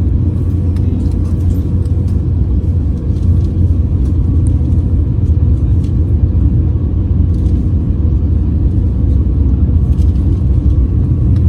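Steady low rumble of a large airliner's running engines and cabin air, heard from inside the passenger cabin, with a faint steady hum over it.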